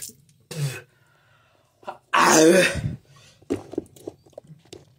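A person coughing and clearing his throat: short hacking throat sounds, then one loud, rasping cough about two seconds in, and a few small clicks near the end. His mouth and throat are burning from a super-hot pepper chip.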